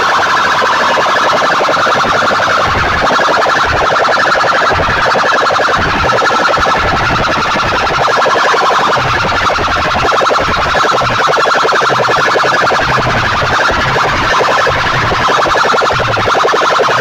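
A loud, rapidly warbling alarm-like tone blasted through a large stack of horn loudspeakers, going on without a break, with irregular low thuds underneath.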